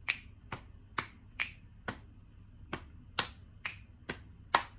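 Finger snaps keeping a steady beat of about two a second, some snaps sharper than others, with a brief skipped beat a little past the middle.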